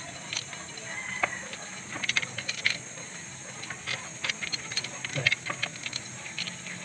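Scattered sharp metallic clicks and clinks of tools and engine parts being handled around the timing-belt and water-pump area of a Toyota 2C diesel engine, over a steady high-pitched hum in the background.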